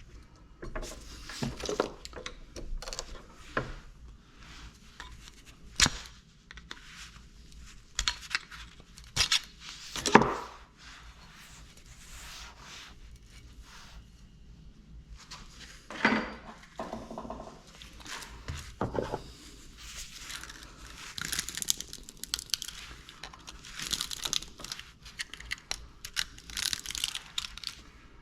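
Hand work on scrap small electric motors: copper winding wire rustling and crinkling as it is pulled and handled, with several sharp metal clanks of parts being knocked or set down. The clanks are spread through the first half, and the rustling thickens into a steady crinkle near the end.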